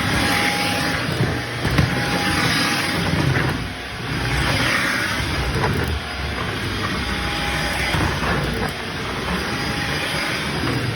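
Shark vacuum cleaner running over a shag rug, its motor hum and air rush swelling and dipping every second or two as it is pushed back and forth, with crunchy sounds of debris being picked up.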